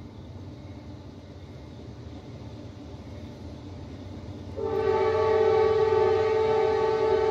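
Low rumble of a train, then a locomotive horn sounds about four and a half seconds in, a loud held blast that continues to the end.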